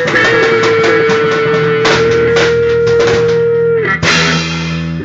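Rock music with guitar and drum kit, played as a song's ending: a long held note over the band, several drum hits, then a final loud hit that rings out and fades.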